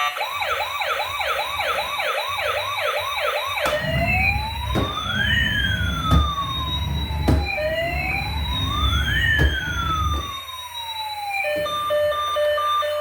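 Electronic siren of a toy emergency vehicle. It starts with a fast yelp of about two or three rising sweeps a second, then changes to a slow rising-and-falling wail, two cycles, with a low rumble and a few knocks under it. Near the end it switches to a steady pulsed beeping.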